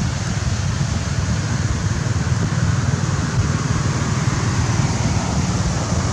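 Wind buffeting the microphone outdoors: a steady rumbling noise with a fainter hiss above it.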